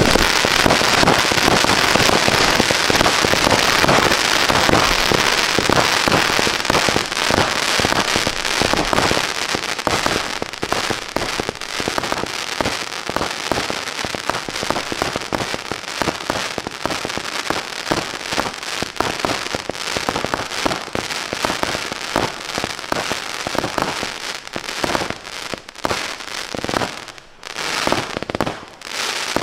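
Two 60-shot consumer firework cakes firing together without a break: a dense stream of tube launches and aerial bursts, overlaid with crackling from the crackle-effect stars. It thins to separate bursts and crackles near the end as the cakes finish.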